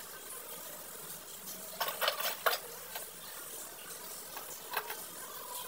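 Faint clinks and scrapes of a utensil against a cooking pot, a small cluster about two seconds in and another near the end, over a low steady hiss.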